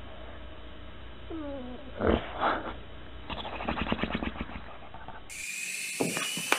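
A sleeping bulldog snores and snorts: a short whimpering whine, then two loud snorts and a fast, rattling snore. Near the end the sound cuts away to a few clicks.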